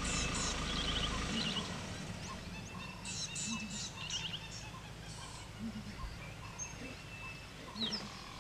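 Birds calling in the bush, many short chirps and trills repeated in quick phrases. Under them a vehicle engine idles and drops away about a second in.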